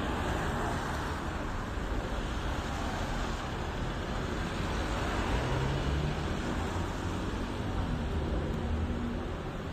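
Cars passing on a rain-soaked street, their tyres hissing on the wet tarmac over a steady low rumble of traffic.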